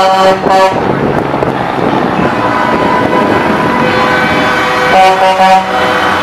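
Semi-truck air horns and passing diesel rigs: a horn blast cuts off within the first second, the engines and road noise of the trucks run on, and another short horn blast sounds about five seconds in.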